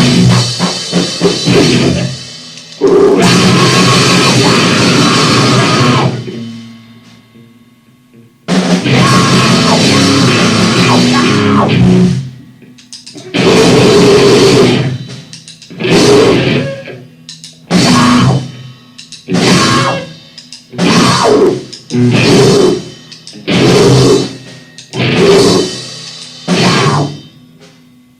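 Loud, distorted noise-punk played on drums and guitar in abrupt stop-start blasts. Three longer blasts come first, then about ten short bursts roughly a second and a half apart, with brief silences between them.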